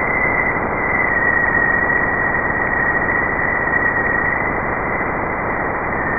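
Sonified 'sound of Jupiter': electromagnetic waves from the planet, picked up by spacecraft and converted into audio. It plays as a steady hiss with a high whistling tone held over it that wavers slightly in pitch.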